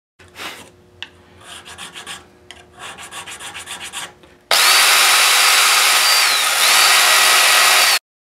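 Small hand file rasping in quick, repeated strokes along the fret ends and rosewood fingerboard edge. About four and a half seconds in, a loud rotary power tool spinning a brass bristle brush starts up, cleaning the gummy Brazilian rosewood out of the file's teeth. Its motor whine dips briefly under load, then it cuts off suddenly.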